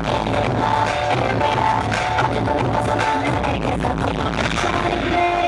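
Amplified K-pop dance track performed live over a concert PA, with a steady beat and heavy bass, recorded from within the audience.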